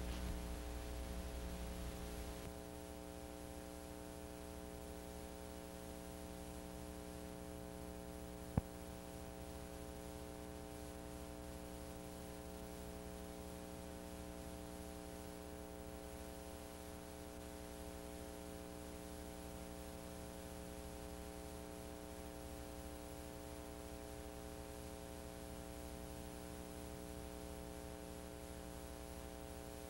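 Steady electrical mains hum with a buzz of evenly spaced overtones and a faint hiss, the residual noise of a blank soundtrack. A single sharp click about eight and a half seconds in.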